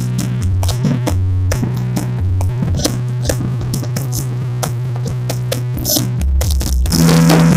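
Electronic dance music with a drum-machine beat and heavy sustained bass notes, played loud through a large 'sound horeg' sound system during a sound check. It gets louder near the end.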